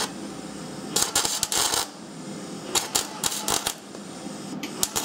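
Electric welder arc crackling in two bursts of about a second each, building up metal on a worn rear brake caliper bracket, where a groove worn into the pad seat lets the pad rattle against the caliper.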